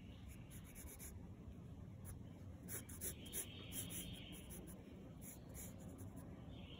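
Wooden pencil sketching on paper, faint: two runs of quick short strokes, one just after the start and a longer one about halfway through.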